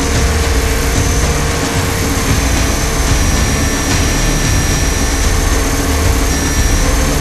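A 500-size radio-controlled UH-60 Black Hawk scale helicopter in flight, its rotor and drivetrain heard from inside its own cockpit. A loud, steady mechanical hum with a thin high whine that wavers slightly in pitch.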